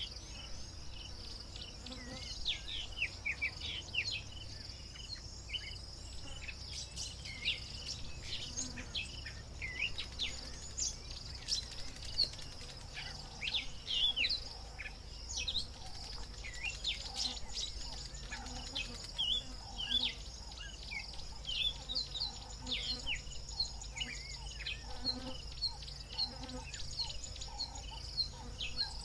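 African bush ambience: a steady high insect buzz with many short, quick bird chirps over it. From about halfway a lower call repeats roughly once a second.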